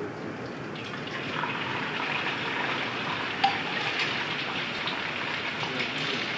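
Beaten egg sizzling on a hot iron griddle, the sizzle building about a second in as the egg is ladled on, with one sharp pop about three and a half seconds in.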